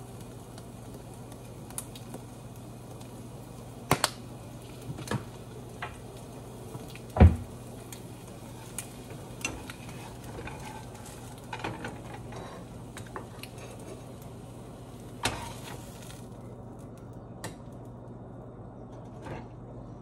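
Eggs frying in a nonstick skillet with a faint sizzle, while a silicone spatula now and then knocks and scrapes against the pan; the loudest knock comes about seven seconds in. A steady low hum runs underneath.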